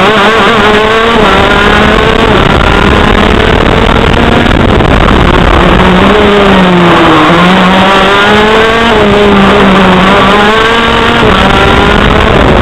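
TM KZ10C 125cc two-stroke shifter kart engine at racing speed, heard from on board the kart. It revs hard, its pitch climbing, holding and dropping back several times as the driver works through the corners, over steady wind and track noise.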